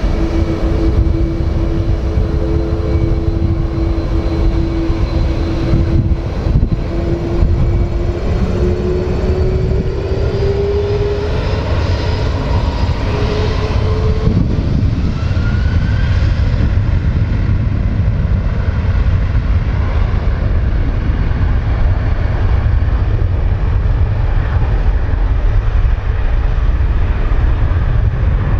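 Airliner jet engines: first a whine that rises slowly in pitch over a heavy rumble as an Airbus A321neo rolls along the runway, then a steady, loud jet rumble from an Airbus A330 on the runway.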